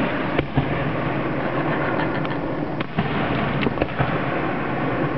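Fireworks going off: a string of sharp bangs and cracks over a steady noisy background.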